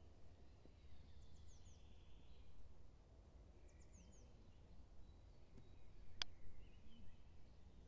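Faint birdsong: short, high chirps falling in pitch, in quick groups of three or four, over a low steady rumble. A single sharp click about six seconds in.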